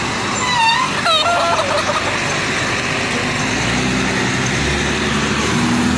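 Steady road and wind noise from a moving vehicle, with a rooster crowing about half a second in. From about three and a half seconds, a low engine hum comes in.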